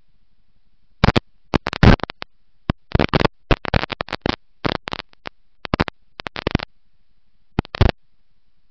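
Irregular bursts of harsh scratching and crackling on an on-board race-car camera's microphone, starting about a second in and stopping near the end, over a faint low rumble.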